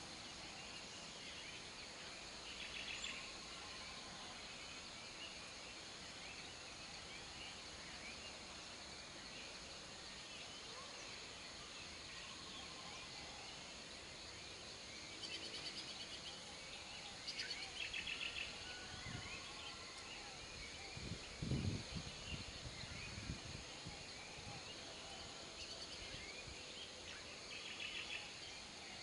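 Faint outdoor ambience: a steady high insect drone with short bird chirps every few seconds, and a couple of low thumps about two-thirds of the way through.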